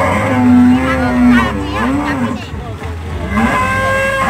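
Several long, drawn-out wavering vocal calls, rising and falling in pitch, over a low steady hum.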